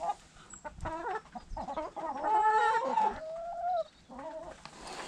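Chickens clucking in a string of short calls, with one longer drawn-out call about halfway through.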